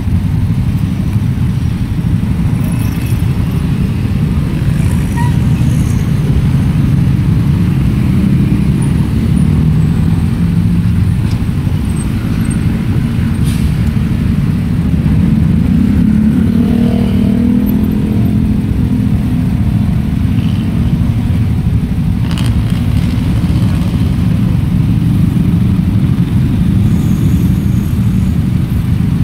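Motor scooters and motorcycles idling in stopped traffic: a steady low engine rumble. About halfway through, a nearby engine revs, rising in pitch, and a few short clicks come near the end.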